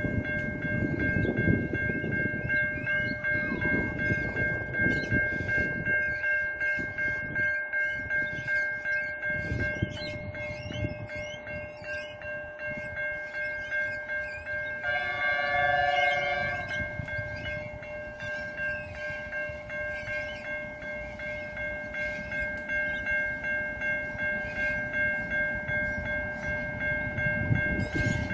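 Level-crossing warning bell ringing steadily, with wind buffeting the microphone. A distant diesel locomotive's horn sounds once, for about a second and a half, around halfway through.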